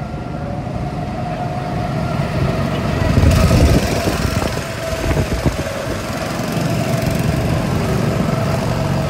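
Several go-kart engines buzzing steadily as the karts circle the track, swelling about three seconds in as a kart passes close.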